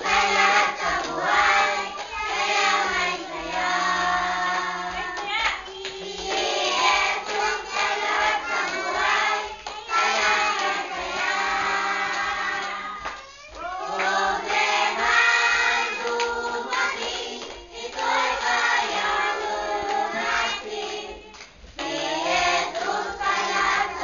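A group of children singing a Tagalog Christian song together, with short breaks between phrases.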